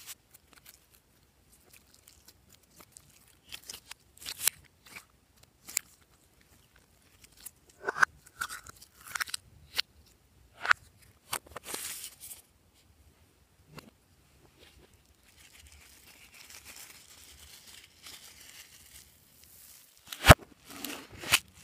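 Hands handling and squeezing small plastic toy containers over a glass bowl of foam beads: scattered plastic clicks, crinkles and rustles, with a faint steady rustle in the second half and one sharp click near the end.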